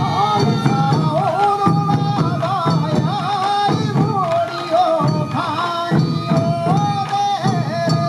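Sansa odori music: a high, ornamented melody, typical of the Japanese bamboo flute, over the steady beat of many waist-slung sansa taiko drums.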